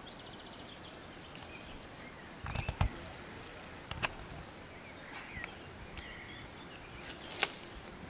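Outdoor background hiss with faint bird chirps, a short trill at the start and a few calls in the second half. A low thump with clicks comes between two and three seconds in, and a sharp click near the end is the loudest sound.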